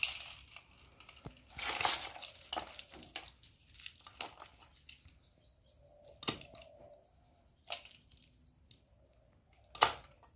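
A knife cracking and chopping freshwater snail shells on a wooden block, in irregular sharp knocks and clicks, with snail shells clinking and splashing into a metal bowl of water. The shells are being cut open so the snails can be cleaned and eaten.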